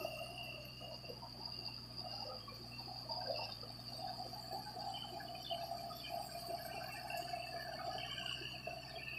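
Kubota MU4501 diesel tractor running with a steady hum while its rotary tiller churns and splashes through water and mud in a flooded paddy field.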